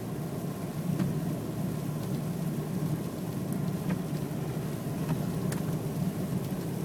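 Car driving on a slick, snow-covered road: a steady low rumble of engine and tyres, with a few faint ticks.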